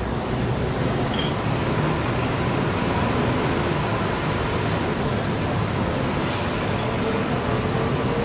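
Steady road traffic noise, with a short hiss about six seconds in.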